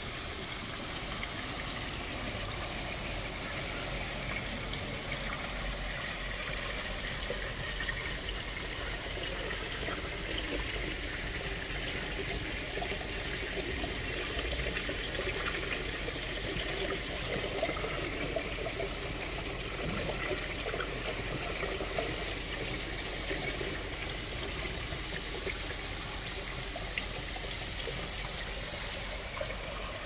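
Tiered rock waterfall pouring and splashing steadily into a koi pond, a constant trickling rush, with faint short high ticks every few seconds.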